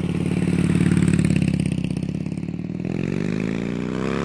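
Harley-Davidson V-twin motorcycle engine running with a steady pulsing beat, then revving up near the end.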